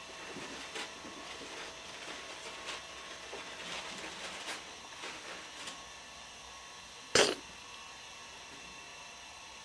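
Faint scattered ticks as a kitten works at small prey on a carpet, then about seven seconds in a single short, loud, sneeze-like burst.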